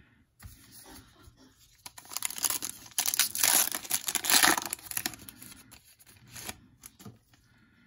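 Foil wrapper of a Panini Contenders football card pack being torn open and crinkled. It is loudest for a couple of seconds in the middle, then eases to softer rustling.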